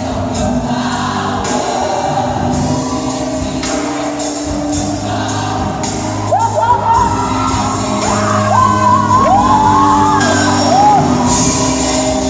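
Gospel choir singing over instrumental accompaniment with a steady percussion beat. About six seconds in, a solo voice rises above it, sliding up into high held notes.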